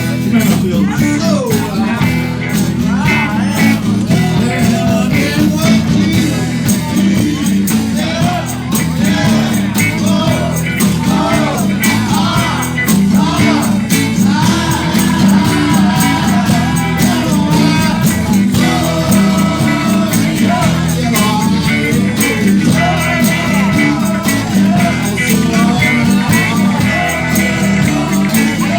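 Live band playing a jam, with a steady beat, a strong bass line, and a lead melody that bends and wavers in pitch.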